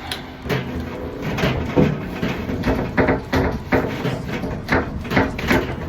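Irregular clicks, knocks and scraping of a SharkBite push-fit fitting being worked off PEX pipe with a plastic remover tool, several sharp knocks a second.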